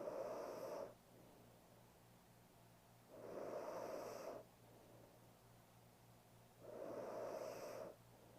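A woman snoring softly in her sleep: three long, noisy breaths about three and a half seconds apart, in an even rhythm.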